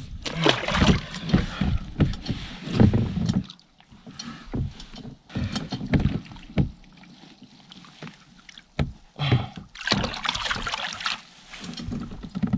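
Water splashing and repeated knocks and bumps on a kayak hull while a large pike is handled at the boat. The splashing is busiest over the first few seconds and again around ten seconds in.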